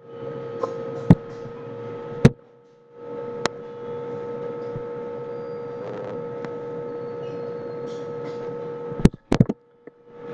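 Computer mouse clicks: a few sharp single clicks, then a quick cluster of clicks near the end, over a steady background hum.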